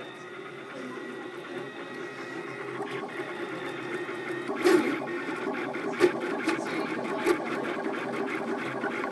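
3D printer's stepper motors whirring in a steady whine that grows louder. From about halfway there is rapid ticking and a few sharp knocks.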